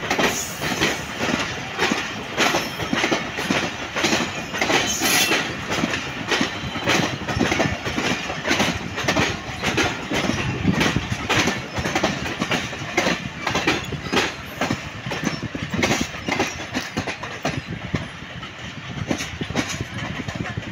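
Pakistan Railways passenger coaches rolling past, their wheels clattering over rail joints and points in a rapid, irregular clickety-clack that grows somewhat fainter over the last few seconds as the train draws away.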